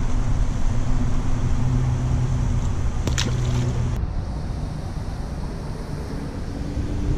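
Strong wind buffeting the microphone with a rough low rumble, joined by a steady low hum that stops about halfway through.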